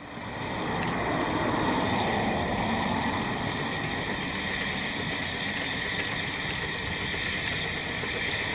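Steady, even noise of a distant Ffestiniog Railway narrow-gauge steam locomotive approaching with its train, fading in at the start.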